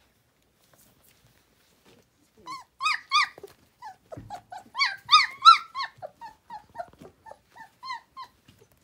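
Three-week-old puppies squealing and whimpering. A few sharp, high-pitched cries come about two and a half seconds in, a louder cluster follows around the middle, and it trails off into a run of quieter short whimpers.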